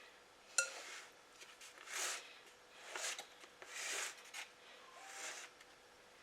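Faint, soft scraping strokes, about one a second, of a kitchen utensil working creamy Kool-Aid pie filling out of a bowl and spreading it in the crust.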